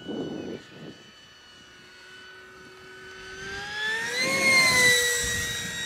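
Electric ducted-fan RC model jet flying past with a steady fan whine. About three and a half seconds in it swells as the jet comes close, rising then falling in pitch, and it is loudest just before the end.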